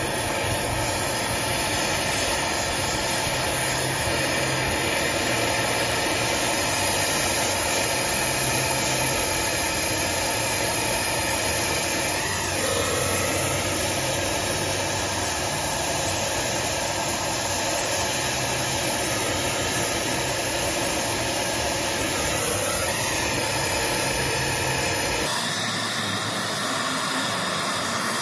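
Brazing torch flame hissing steadily as a copper refrigerant line joint is brazed under a nitrogen purge. Near the end the hiss abruptly drops to a thinner, quieter sound.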